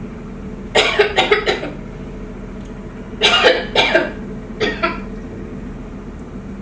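A woman coughing in three bouts: four quick coughs about a second in, two more near the middle, and one last cough shortly after, over a steady low hum. The coughing is staged, faked as if something is caught in her throat.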